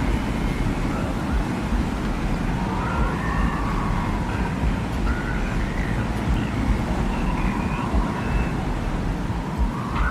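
Desert wind ambience: a steady, deep rumble of wind with faint whistling tones that drift up and down in pitch.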